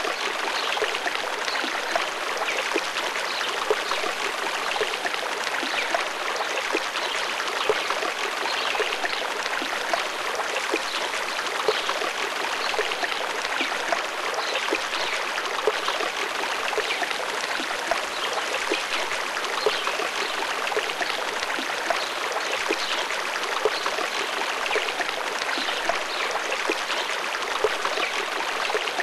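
Running water: a stream flowing steadily, with many small splashes.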